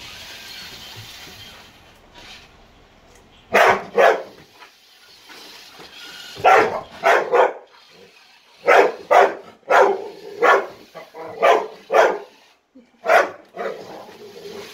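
Pit bull barking: about a dozen short barks in groups of two to four, with gaps of a second or two between groups.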